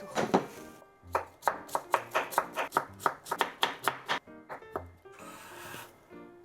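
Knife chopping on a cutting board: a quick run of about a dozen even strokes, three to four a second, starting about a second in and stopping about four seconds in, over background music.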